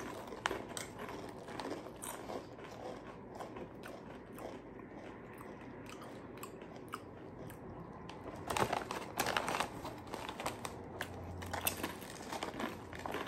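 Potato chips being crunched and chewed by two people, in scattered crisp crackles. Denser, louder crackling comes a few seconds before the end, as the foil chip bag crinkles while a hand reaches into it.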